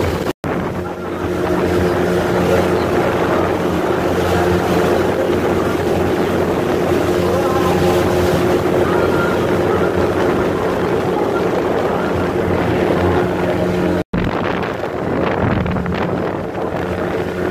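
Motorboat engine running steadily: a constant hum with a broad rush of wind and water noise over it. The sound drops out for an instant twice, once just after the start and once near the end.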